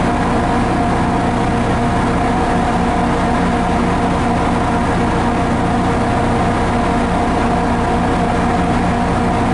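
MARC commuter train standing at the platform with its diesel engine idling, a steady hum with several held tones that doesn't change.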